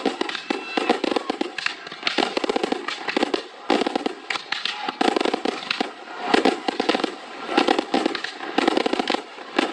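Aerial fireworks going off in a rapid barrage, many sharp bursts and crackles in quick succession, in clustered volleys.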